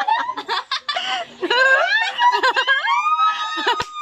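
A group of young women laughing and shrieking together, with many voices overlapping. Near the end one high squeal is held for about a second.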